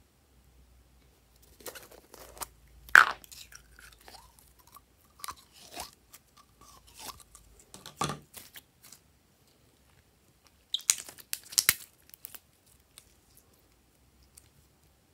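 Green slime being squeezed out of its squeeze bottle and pressed between the fingers: irregular sticky crackles, clicks and squelches in clusters. The loudest come about three seconds in and again around eleven to twelve seconds.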